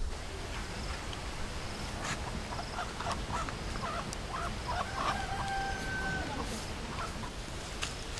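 A rooster crowing, with shorter calls first and then one long, held crow about five seconds in, over a steady low outdoor rumble.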